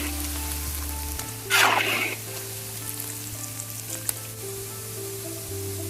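Red sausages frying in hot oil, sizzling steadily, with a brief louder surge of hiss about one and a half seconds in.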